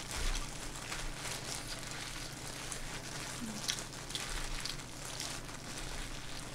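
Plastic-gloved hands squeezing and kneading rice mixed with seaweed flakes: a faint, soft crackling rustle of many small ticks.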